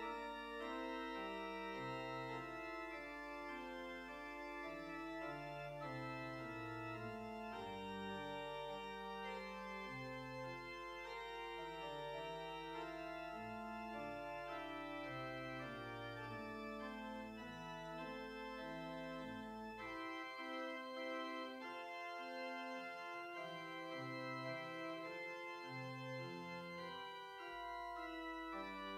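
Church pipe organ playing a slow opening prelude of sustained chords, the notes changing every second or so over a steady held bass.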